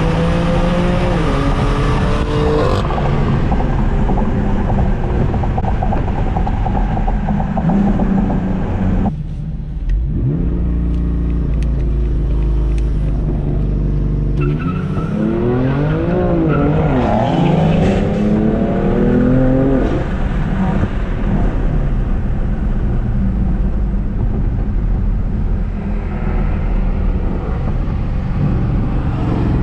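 BMW F80 M3 Competition's twin-turbo straight-six, tuned to about 470 hp, pulling through the gears. Revs rise and drop with shifts in the first few seconds and again about halfway through, with a brief lift-off between, then it settles to steadier cruising.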